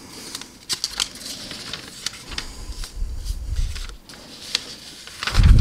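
A folded paper instruction sheet being handled and unfolded, with rustling and crackling of the paper. A dull thump near the end as it is pressed flat on the wooden table.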